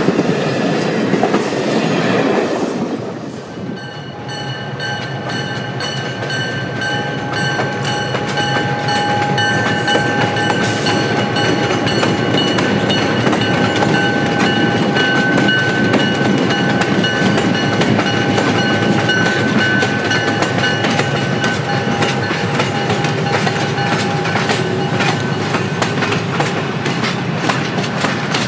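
Passenger cars of a train rolling past, wheels clicking over the rail joints. A steady high whine runs through most of it. The sound dips briefly about three seconds in, then picks up again.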